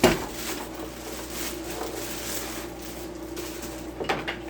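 Handling noises while unboxing a power tool: a sharp knock at the start, then rustling of packaging, and a couple of clicks near the end, over a steady low hum.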